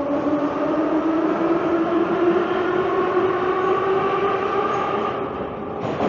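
Metro train running with its traction motors whining and slowly rising in pitch as it picks up speed, over the rumble of the cars. The sound breaks off abruptly near the end.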